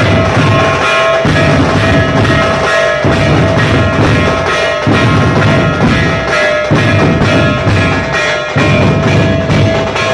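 Dhol-tasha ensemble drumming: quick, even tasha strokes run on without a break while the big dhol drums come in heavy phrases of about two seconds each. A steady high tone holds under the drumming.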